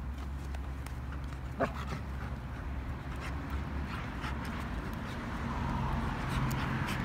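Dogo Argentino making dog sounds while play-wrestling on its back, with one short, sharp vocal sound about a second and a half in. A low engine hum comes in near the end.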